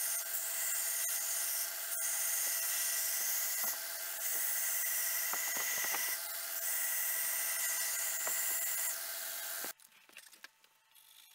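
Belt grinder running, with a desert ironwood handle scale pressed against the moving abrasive belt, sanding the wood down to the knife tang's profile: a steady grinding hiss over the motor's hum that eases briefly a few times as the pressure changes. It cuts off suddenly near the end.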